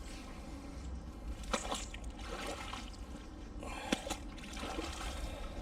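Water dripping and squelching off a wet, muddy clump of metal just pulled from a canal on a fishing magnet as it is handled, with a few sharp clicks about one and a half seconds and four seconds in.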